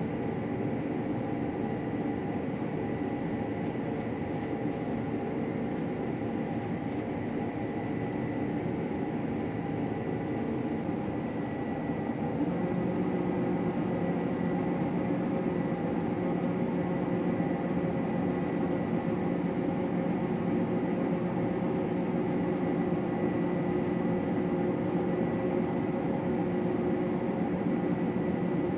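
Combine harvester running steadily while cutting wheat, a continuous machine drone with a thin high steady tone. The drone gets slightly louder and lower-pitched components strengthen about twelve seconds in.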